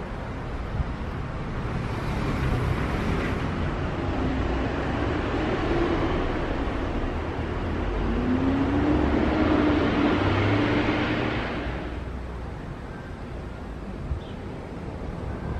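Distant road traffic: a steady low rumble, with one vehicle passing that swells louder about halfway through and fades a few seconds later.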